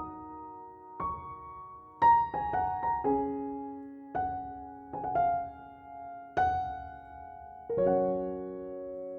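Gentle background piano music: single notes and chords struck every second or so, ending on a chord held and fading away.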